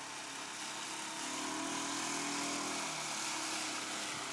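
Old Mariner outboard motor, just fitted with a new water-pump impeller, running under way on an inflatable dinghy, its note rising briefly in the middle and easing off again.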